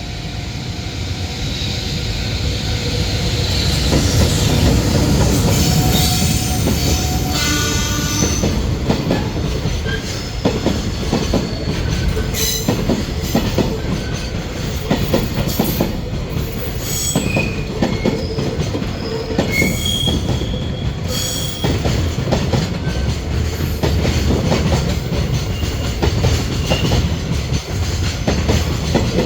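Container freight train behind an EH500 electric locomotive running past close by: a heavy rumble of wheels on rail that grows over the first few seconds, with the clatter of wheels over rail joints and short, high wheel squeals now and then.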